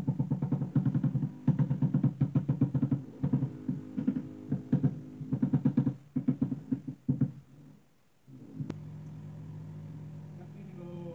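Rubber mallet tapping ceramic floor tiles in quick succession, several knocks a second, bedding them into the mortar. The tapping stops about seven seconds in, and a steady low hum is left.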